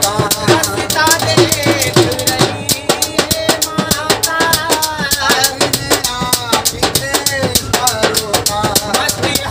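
Devotional bhajan: a man singing with a bending melodic line over a fast hand-drum beat, with rattling percussion throughout.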